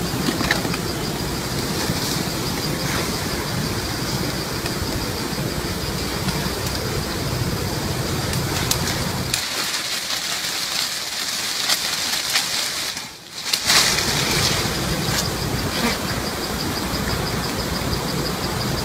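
Honeybee swarm buzzing, with leaves rustling as the swarm is brushed and shaken off a branch into a cloth bag. A steady, evenly pulsing high insect trill runs underneath. The sound cuts out briefly about two-thirds of the way through.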